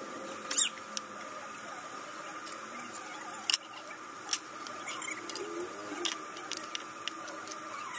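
Several sharp light clicks and taps of metal on metal and stone as stainless steel tubes, a steel ring and a flat steel square are handled and set down, the loudest about halfway through, over a steady faint high hum.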